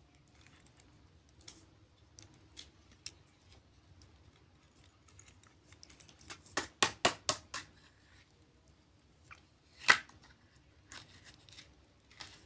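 Metal link bracelet of a Fossil automatic wristwatch clicking and clinking as it is handled: scattered light clicks, a quick run of about six sharp clicks a little past halfway, and one louder click near the end.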